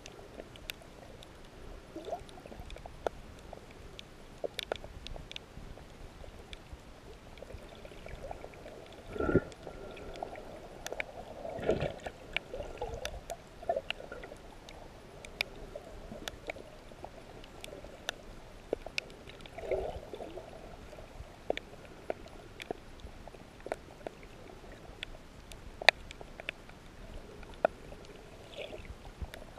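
Underwater sound on a shallow rocky reef: many scattered sharp clicks and crackles over a low hiss, with a few louder gurgling swells of moving water.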